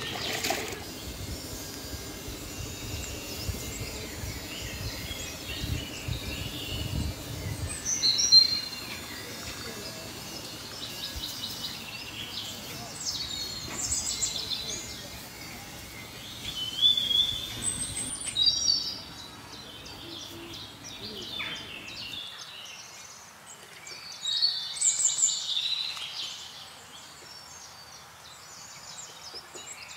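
Outdoor birds chirping and trilling in short bursts, again and again, over a low background rumble that cuts off abruptly about two-thirds of the way through.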